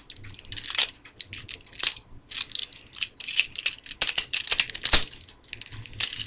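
Plastic Transformers Generations War for Cybertron Optimus Prime action figure being twisted through its transformation by hand: its joints and parts click, snap and rattle irregularly, loudest about four to five seconds in.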